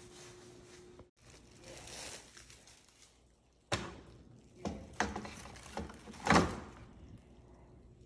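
About five sharp knocks and clunks of an LG range's plastic control panel housing and control boards being handled during disassembly, the loudest about six seconds in.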